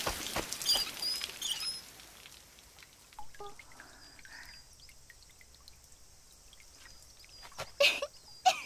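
Spraying water that tapers off over about two seconds into a few scattered drips, with several short bird chirps while it fades. A few soft knocks come near the end.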